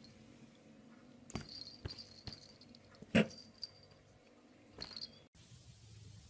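Two cats scuffling as they play-fight: a few faint knocks and rustles, with one louder short sound about three seconds in. After a sudden cut near the end, a faint low steady noise.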